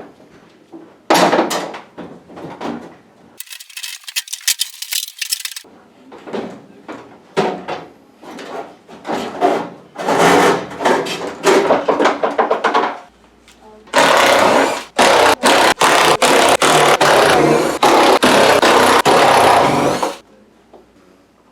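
Loud scraping and grinding of tool work on the washing machine's drum and tub parts, in short irregular bursts, then one long stretch with brief breaks near the end.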